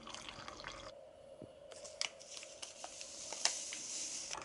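Hot water pouring from a kettle into a ceramic mug stops about a second in. After a short pause, a drink-mix packet crinkles and tears, and its powder hisses into the mug, with a few small clicks.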